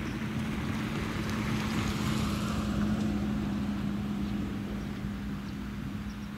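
An engine running with a steady low drone, growing louder to a peak about two to three seconds in and then slowly fading, as of a motor passing by.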